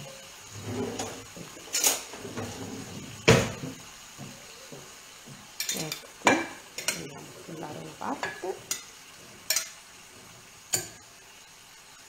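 Kitchen utensils clinking and knocking against dishes and a pan in irregular sharp strikes, the loudest about three seconds in, over faint sizzling from the frying pan.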